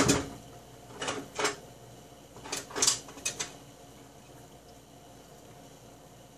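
Kitchen things being handled on a counter: a few light clicks and clatters over the first three and a half seconds, then only quiet room tone.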